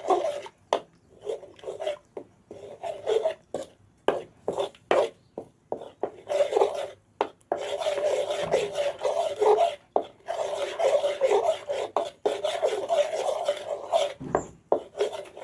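A spatula scraping and stirring in a wok in quick, irregular strokes, stir-frying red curry paste in coconut milk until fragrant.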